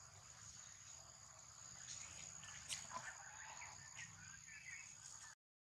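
Steady high insect drone. About halfway through there is a click and a few short high squeaks from young long-tailed macaques scuffling. The sound then cuts out completely for a moment near the end.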